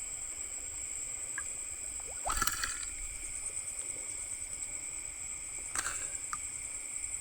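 Night insects, crickets, chirring in a steady high chorus, with a brief noise about two and a half seconds in and another near six seconds.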